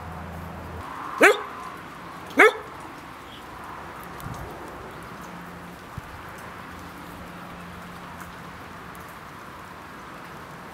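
A dog barks twice, about a second apart, two short loud calls that each rise sharply in pitch.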